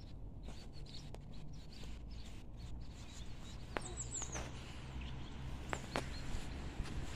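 A bird calls a quick series of three or four short, high, falling chirps about four seconds in. Under it runs a steady low outdoor rumble, with a few sharp clicks.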